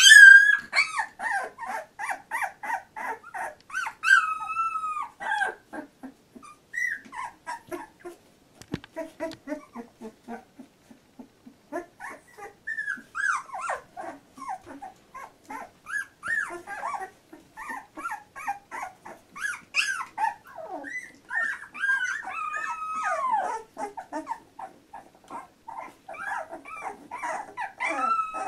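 Two-week-old Labrador retriever puppies whimpering and squeaking: a steady stream of short, high whines and squeals, many sliding down in pitch and often overlapping, loudest right at the start.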